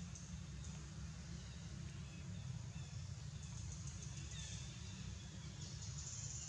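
Faint outdoor ambience: a steady low rumble, with a thin high buzz coming and going.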